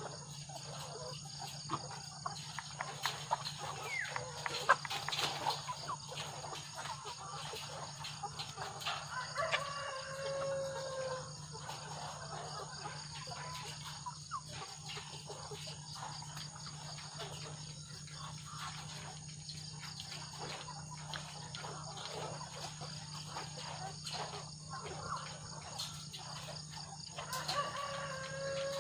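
Caged ready-to-lay hens clucking and calling, with a drawn-out call about ten seconds in and again near the end, over a steady high insect drone.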